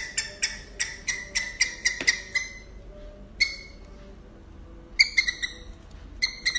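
Prairie dog chirping: rapid runs of short, sharp, high-pitched calls at about five a second. The calls stop after about two seconds, with one lone call in the gap, and start again in quick bursts about five seconds in and near the end.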